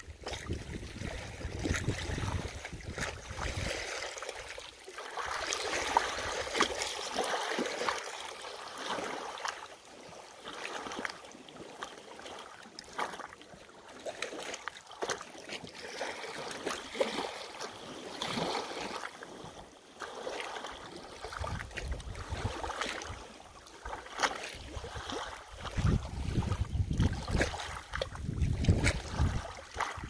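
Small lake waves lapping and splashing on a pebble shore, with a constant patter of small splashes and clicks. A low wind rumble on the microphone comes in the first few seconds and again in the last third.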